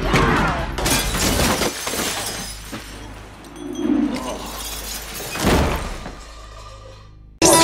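A series of loud crashes and smashing noises, several in the first two seconds and another about five and a half seconds in.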